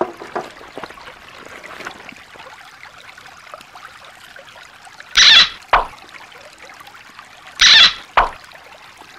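Shallow creek water trickling over rocks, a steady low hiss. About five seconds in, and again about two and a half seconds later, comes a short loud hissing noise, each time followed half a second later by a sharp click.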